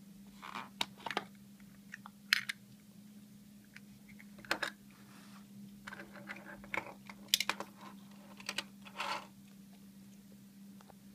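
Small hard-plastic carrying case and packaging handled by hand: an irregular scatter of clicks, taps and short scrapes as the case is lifted out of its box insert, set down and its clear flip lid opened. A faint steady low hum sits underneath.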